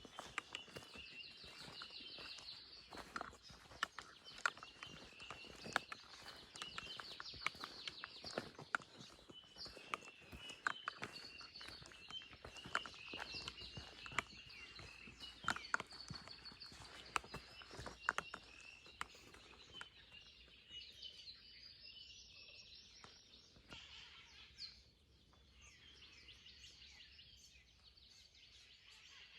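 Small birds chirping and twittering continuously in high, rapid calls. Over most of the first two-thirds, irregular sharp clicks and taps sound among them, then stop.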